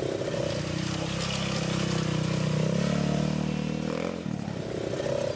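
Quad bike (ATV) engines running and revving at low speed. The engine note drops sharply about four seconds in, then climbs again as another quad pulls away.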